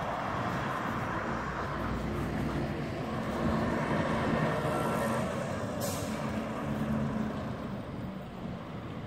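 Street traffic going by, with a bus engine passing, loudest in the middle, and a short hiss about six seconds in.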